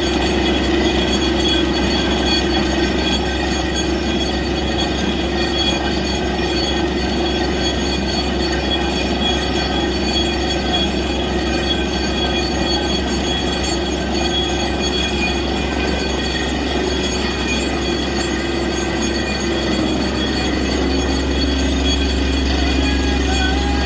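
Borewell drilling rig running steadily: its engine and air compressor drone with several high steady whining tones over a low hum, while water from the struck aquifer gushes and sprays out of the bore hole around the drill pipe.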